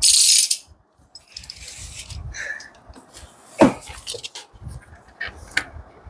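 Handling noise from unpacking instrument parts: a short loud rustle at the start, then scattered light clicks and clatter of hard parts, with one sharper click a little past halfway.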